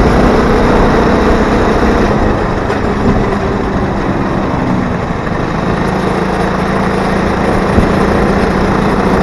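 80cc two-stroke engine of a motorized bicycle running under way, with heavy wind noise on the microphone. The engine note eases down over the first few seconds, then holds steady.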